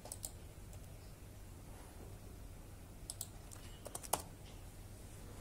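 Faint room tone with a few light clicks: two just after the start, two about three seconds in, and a short cluster about four seconds in.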